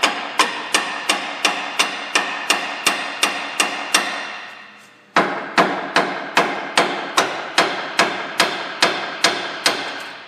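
A hammer repeatedly tapping upward on a rusted Ford Explorer rear upper control arm, driving its ball-joint stud out of the spread knuckle pinch. The blows come evenly, about three a second, each with a metallic ring. They pause briefly about halfway through, then resume.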